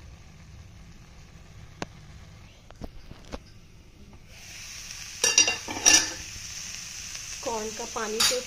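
A spoon stirring boiled sweet corn kernels in a pan, with a few light ticks. About four seconds in, a louder frying sizzle starts as the last of the water cooks off, and a steel pan lid clanks twice against the pan.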